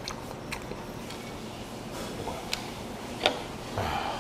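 Metal chopsticks clicking against a small ceramic bowl while eating, several light clicks with a sharper one about three seconds in. Near the end comes a short wet rustle as squid strands are lifted out of the cold soup.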